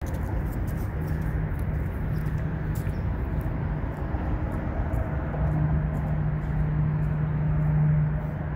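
Steady low rumble of city traffic with an engine hum that swells about halfway through and drops away near the end as a vehicle passes, with faint high ticks scattered over it.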